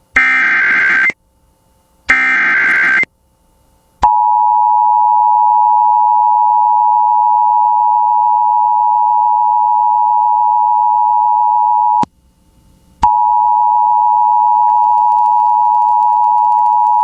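Emergency Alert System broadcast tones: two screeching SAME header data bursts of about a second each, then the two-tone EAS attention signal, a steady dual tone that holds for about eight seconds, drops out for about a second, and resumes.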